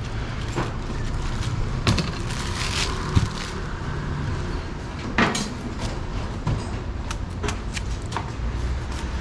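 Large knife cutting a whole pineapple: several sharp knocks as the blade and fruit strike the cutting board, the loudest about three seconds in, with lighter clicks of the blade through the rind later on, over a steady low background hum.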